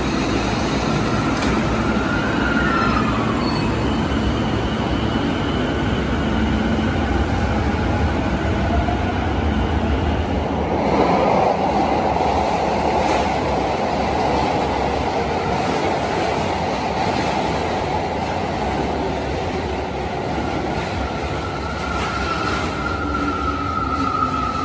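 Electric commuter trains in an underground station: a stainless Keio train runs along the platform with a steady rumble of wheels on rail, loudest about eleven seconds in. A thin whining tone from the train's motors glides near the start and holds steadily near the end.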